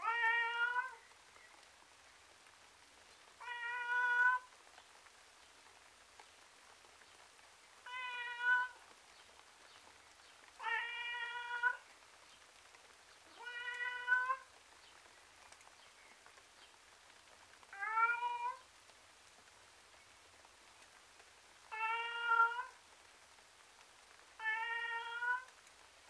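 Tom cat meowing over and over, with eight drawn-out, miserable meows of about a second each, one every three to four seconds.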